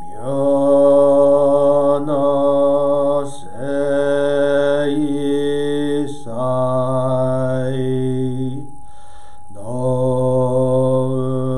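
A solo male Buddhist priest chanting Shin Buddhist sutra verses in long, steadily held notes. The chant breaks briefly about every two to three seconds and pauses longer for breath about nine seconds in.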